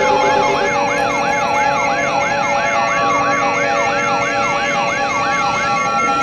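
An electronic siren yelping in quick rising sweeps, about two and a half a second, layered over several steady and pulsing alarm tones. The yelping stops shortly before the end, leaving the steady tones.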